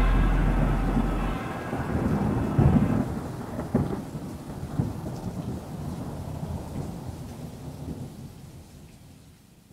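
Thunderstorm: rain falling with rolling thunder rumbles, a few louder cracks in the first half, gradually fading out.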